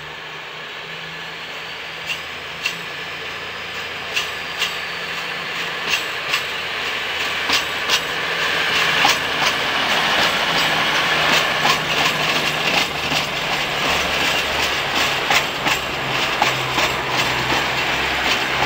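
Class 222 Meridian diesel multiple unit pulling away and passing close by, its underfloor diesel engines running and its wheels clicking over rail joints and points. It grows steadily louder, and the clicks come faster as it draws level.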